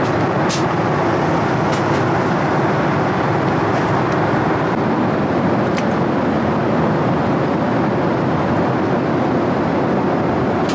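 Steady, loud noise of a jet airliner's cabin in flight: engine and airflow noise, with a few faint clicks.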